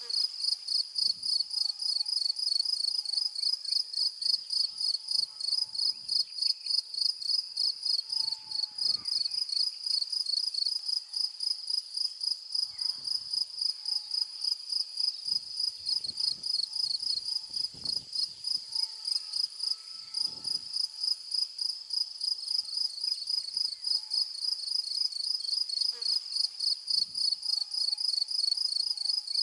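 A cricket chirping steadily in a high, even pulse, about three chirps a second without a break.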